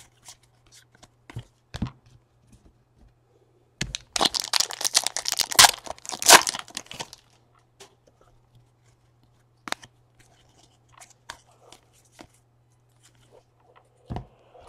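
A trading card pack's wrapper torn open: a few seconds of ripping and crinkling, loudest about four to seven seconds in, with scattered soft clicks of cards being slid and flipped through before and after.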